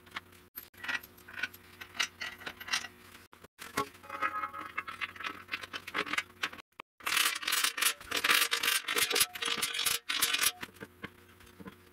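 Steel winch mounting bracket and plate clinking, rattling and scraping against the vehicle's frame as they are worked into position by hand. There are scattered clinks at first, then a burst of rapid rattling and scraping about seven seconds in.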